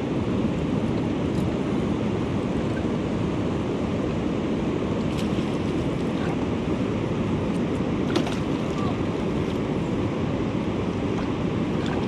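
Steady rush of river water running through rocky shoals, mixed with wind noise on the microphone. A light click about eight seconds in.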